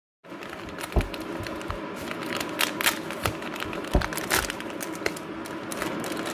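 Crinkling and clicking handling noise over a steady background hiss, with two dull thumps, about a second in and about four seconds in.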